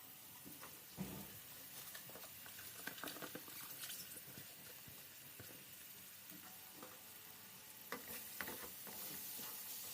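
Food sizzling faintly in a hot pan, with a utensil scraping and knocking against the pan now and then.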